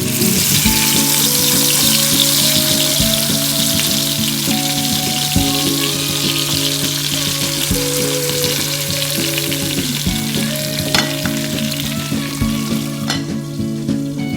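Chicken pieces sizzling in hot oil on a tawa griddle, a dense steady crackle that fades away near the end, with instrumental guitar music underneath.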